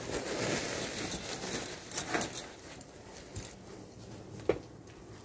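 Banarasi katan silk saree with gold zari being handled and spread out, its fabric rustling, louder in the first couple of seconds. A few short, sharp crinkles or clicks come about two seconds in and again near the end.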